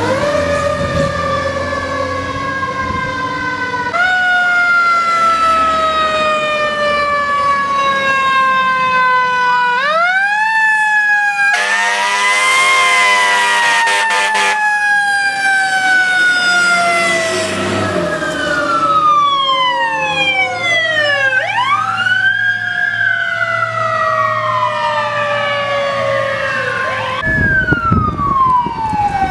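Fire engine sirens wailing as the trucks respond, several overlapping, each winding up quickly and then falling slowly in pitch. About midway a steady horn blast sounds for a few seconds over them.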